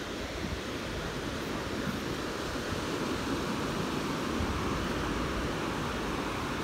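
Surf washing onto a sandy beach at low tide, a steady even rush of small waves on a calm sea, with wind rumbling on the microphone.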